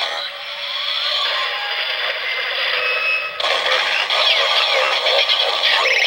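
Tinny electronic sound effects and music from a Kamen Rider Zero-One toy transformation driver's small speaker. The looping standby sound shifts into a busier passage about three and a half seconds in.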